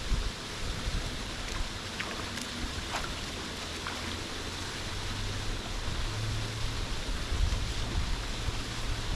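Steady rush of river water, with wind rumbling on the microphone and growing stronger after about six seconds.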